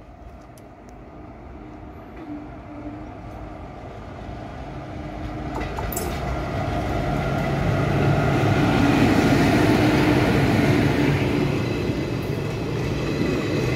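Electric locomotive hauling an express passenger train on approach and passing close by. The rumble and wheel noise grow steadily louder, are loudest about eight to eleven seconds in as the locomotive and leading coaches go past, then continue as the coaches roll by.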